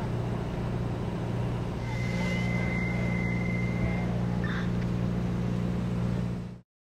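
Steady drone of a fire truck's engine running, with a thin, high steady tone for about two seconds partway through; the sound cuts off abruptly near the end.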